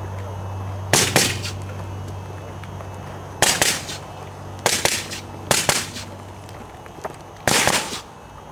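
Suppressed MK12 rifle (5.56 mm) firing about five shots at irregular intervals, each a sharp crack closely followed by a second report.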